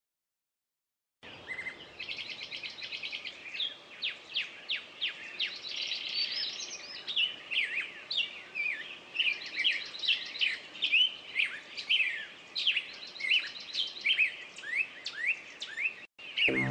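Many songbirds chirping and trilling together, a dense chorus of quick sweeping notes and buzzy trills. It starts suddenly about a second in, after silence.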